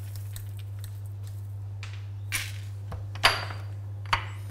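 Mixed lentils dropped by hand onto the bottom of an empty cardboard pizza box: a few short, light rattles, the loudest about three seconds in, over a steady low hum.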